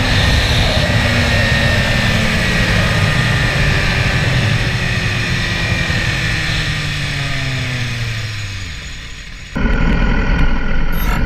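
Motorcycle engine held at high revs, then winding down, its pitch falling slowly and its sound fading over several seconds. Near the end it cuts off abruptly to a different, steady low rumble.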